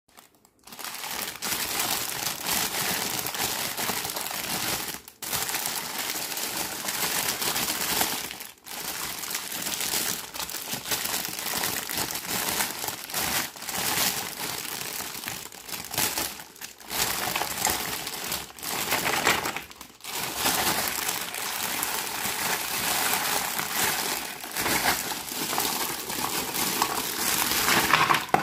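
Clear plastic packaging bag crinkling as hands squeeze, rub and open it around a set of plastic toy kitchen pieces. The crinkling is continuous, with a few brief pauses.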